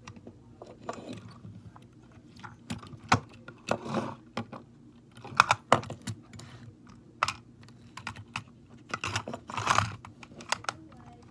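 Diecast toy cars and a toy box truck handled on a wooden tabletop: irregular small clicks, taps and short scrapes, with louder clatters about halfway through and near the end.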